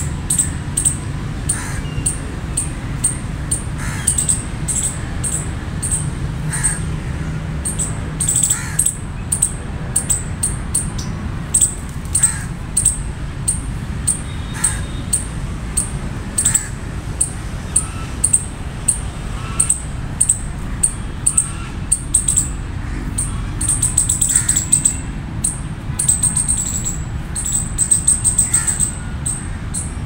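Palm squirrel chirping in a long, rhythmic run of short, very high-pitched chips at about two a second. Near the end, some calls are drawn out into longer high notes.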